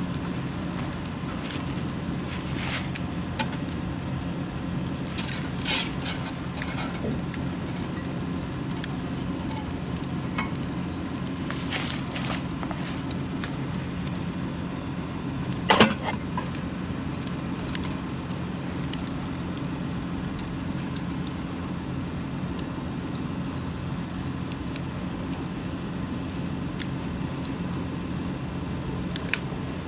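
Wood fire crackling, with scattered sharp pops and one louder pop about sixteen seconds in, over a steady low hum.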